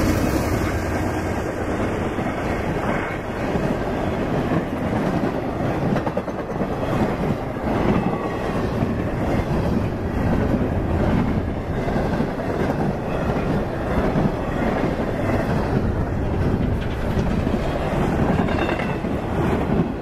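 An intermodal freight train's stack cars and trailer flatcars rolling past at speed, giving a steady noise of wheels on rail.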